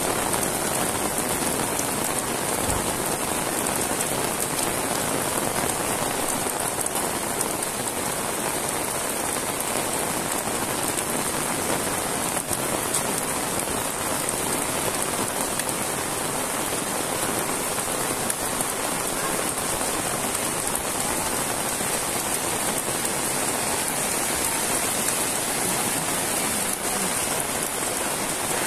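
Heavy rain falling steadily on a paved road and the fields beside it: a dense, even hiss with no letup.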